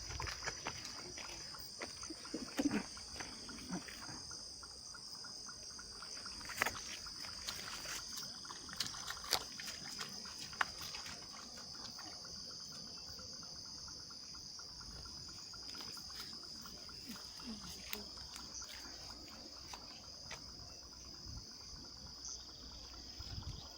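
A steady, high-pitched chorus of insects shrilling, with scattered short clicks and ticks over it.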